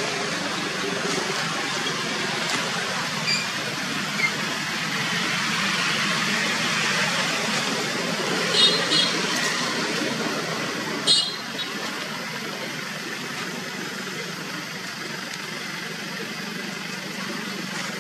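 Steady outdoor background noise, with a few short, high chirps: two close together just before the middle and one a couple of seconds later.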